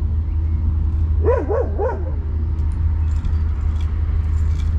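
A dog barking three times in quick succession about a second in, over a steady low rumble.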